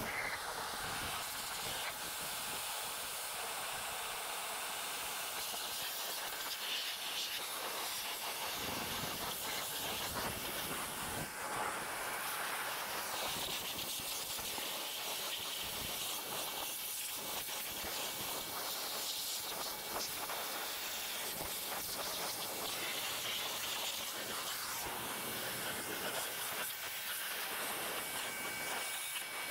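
High-pressure water jet from a pressure-washer spray gun hitting a motorcycle: a steady hiss that shifts a little as the jet moves over the wheels, engine and bodywork.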